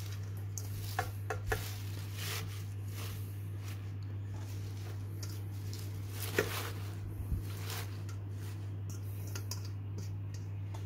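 Handfuls of chopped fresh spinach being pushed from a metal colander into a steel pot: leaves rustling and crinkling with many soft clicks and taps, the sharpest about six seconds in, over a steady low hum.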